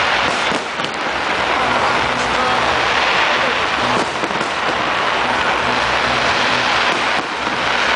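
Fireworks display with many aerial shells bursting and crackling on top of one another in a loud, unbroken barrage.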